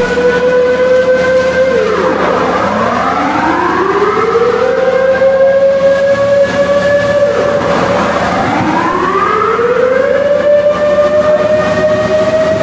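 Air-raid-style warning siren wailing: the tone winds up over two to three seconds, holds, then drops away quickly, repeating about every five and a half seconds.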